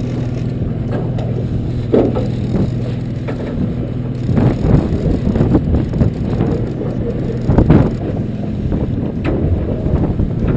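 Steady low hum of a fishing boat's engine under wind buffeting the microphone, with a few scattered knocks and bumps, the loudest about a third of the way in and again near three quarters.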